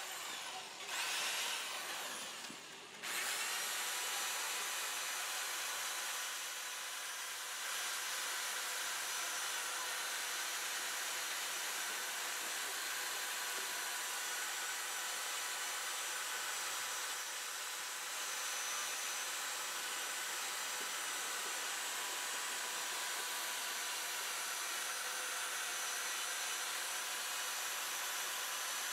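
Handheld electric drill with a cleaning attachment spinning against the rusty wheel hub face, scouring off rust and crud. It cuts out briefly twice in the first three seconds, then runs as a steady high whine with a grinding rasp.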